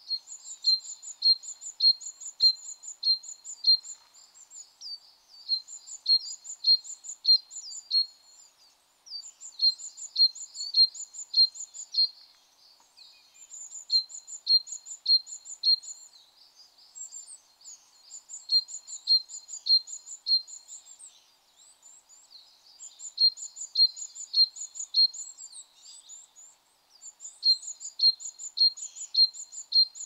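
Japanese tit singing its spring song: a high two-note phrase repeated about twice a second in runs of around three seconds, with short pauses between runs.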